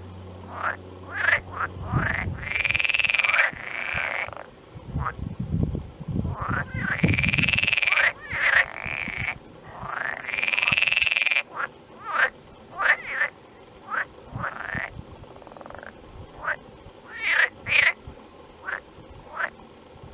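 Frogs calling in a chorus of overlapping crying calls that rise and fall in pitch, some short and a few drawn out to about a second. A low rumble underlies the calls between about five and eight seconds in.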